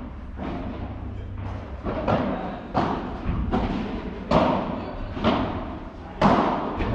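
Padel rally: a padel ball struck back and forth with solid padel rackets and bouncing on the court, about eight sharp thuds at a quick, uneven pace, each with a short echo.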